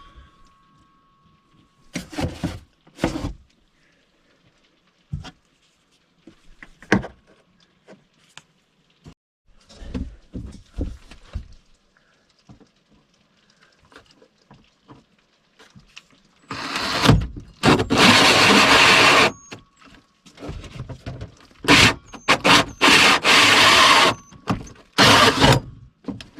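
Heater duct hose being handled and fitted: scattered knocks and clicks, then two loud stretches of harsh scraping, rustling noise a couple of seconds each, in the second half.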